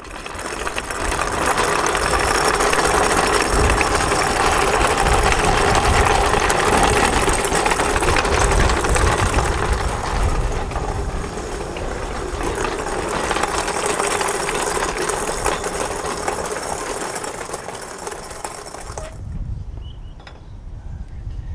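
A machine running loudly and steadily, which drops away about nineteen seconds in and leaves a few faint clicks.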